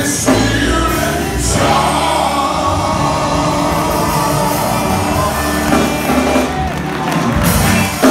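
Men's gospel group singing live into microphones, backed by electric guitar, bass and drums, loud and full.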